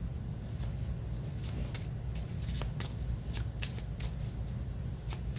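A deck of oracle cards being shuffled by hand: a quick, irregular run of light card clicks and flutters, over a steady low hum.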